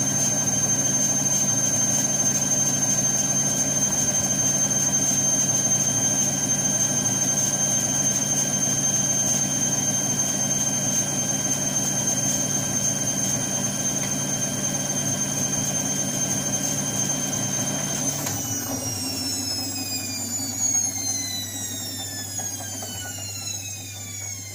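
Balay T-8295 washing machine on its spin cycle, drum spinning at full speed with a steady high whine. About 18 seconds in, the motor drive stops and the whine falls steadily in pitch as the drum coasts down at the end of the spin.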